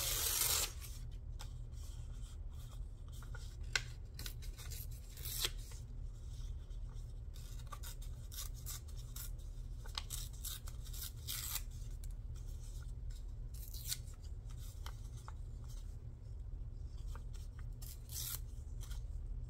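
Scissors snipping paper in short, irregular cuts, with paper being handled and rustled between the snips, over a steady low hum.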